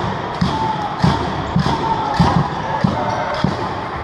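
Basketball being dribbled on a hardwood gym floor: a steady run of bounces, about two a second.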